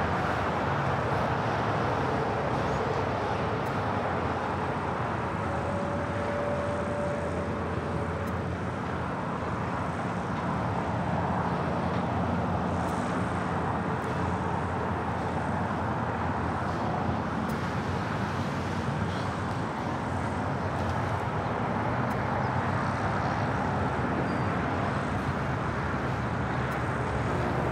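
Steady outdoor airport background noise: a continuous rumble and hum of engines and vehicles, with a faint short whine about six seconds in.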